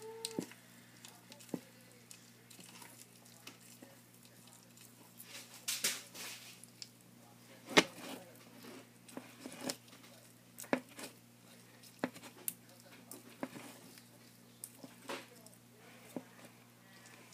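Tortoise eating shredded yellow food in a plastic tub: irregular wet biting, crunching and tearing clicks, the loudest about halfway, over a faint steady hum.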